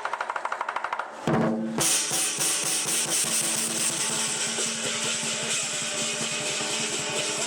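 Lion dance percussion: a drum beaten in a fast roll with clashing cymbals, a loud hit a little over a second in, then dense rapid striking.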